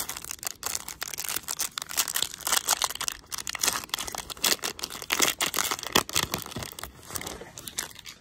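Foil wrapper of a baseball card pack being torn open and crinkled by hand: a dense, irregular run of crackles and rips.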